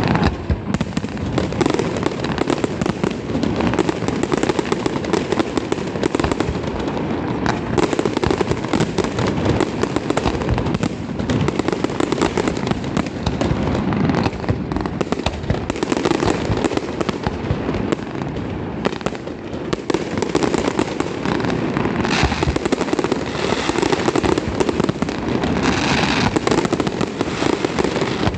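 Fireworks going off in a dense, unbroken barrage of cracks and pops, with no gaps between them.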